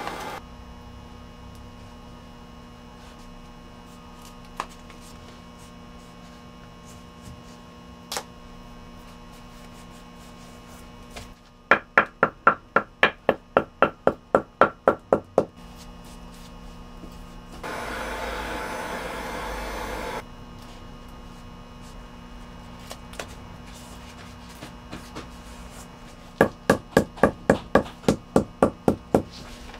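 Shoemaker's hammer tapping in two quick runs of about a dozen even blows, some four a second. Between the runs comes a stretch of steady machine noise lasting a couple of seconds, over a low workshop hum.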